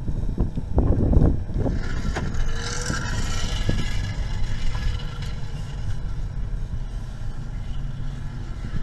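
Car driving off slowly, heard from inside the cabin: a steady low rumble of engine and tyres, with a brief rush of hiss about two to four seconds in.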